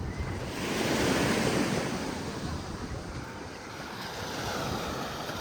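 Sea surf breaking and washing up the beach, one wave swelling to its loudest about a second in and then fading, with wind buffeting the microphone.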